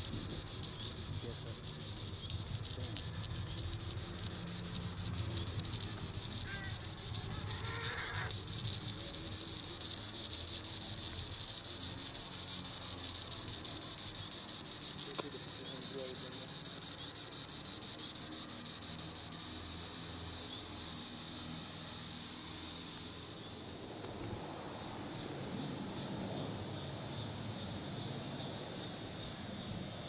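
Green annual cicada (Neotibicen linnei) calling: a high, rapidly pulsing buzz that swells over the first dozen seconds, holds steady, then eases off somewhat after about 23 seconds.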